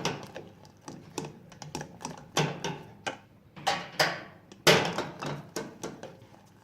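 Kitchen utensil knocking and scraping against a cooking pot: a dozen or so irregular sharp taps and clinks, some followed by a short scrape.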